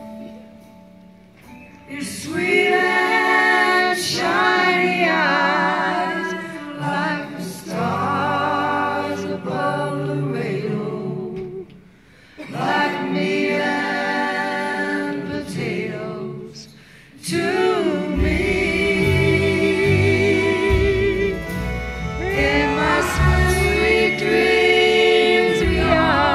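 Live concert music: several voices singing a song together in long phrases with short breaks between lines, over a band that fills out with bass in the second half.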